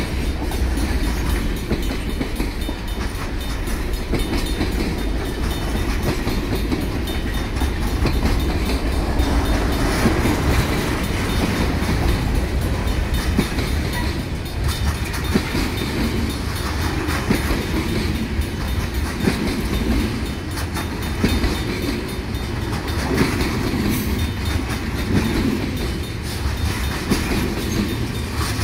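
Loaded freight cars of a Union Pacific manifest train rolling past at a grade crossing: a steady rumble with wheels clattering over the rail joints. The crossing bells, one of them a Safetran mechanical bell, keep ringing over it.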